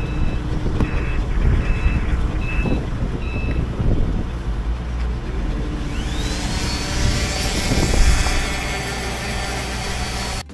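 A yard vehicle's reversing alarm beeps repeatedly over a steady low rumble for the first few seconds. About six seconds in, an electric orbital sander starts up with a quickly rising whine and then runs at a steady high pitch with a hiss, sanding old bottom paint off a sailboat's fiberglass keel.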